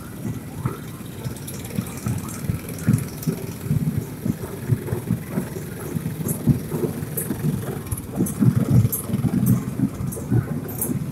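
Small engines of motorized parade floats and motorcycles running at low speed as they roll past, an uneven low rumble with scattered brief ticks in the second half.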